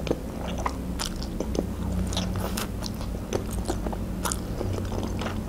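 Close-miked eating of wide green noodles: wet chewing and mouth sounds, with many small irregular clicks and smacks as strands are drawn into the mouth.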